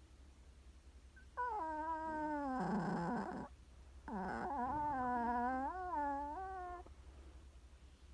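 A sleeping chihuahua snoring: two long, squeaky, whistling breaths, the first sliding down in pitch and the second wavering up and down.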